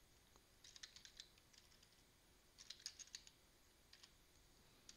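Faint typing on a computer keyboard, in a few short runs of keystrokes.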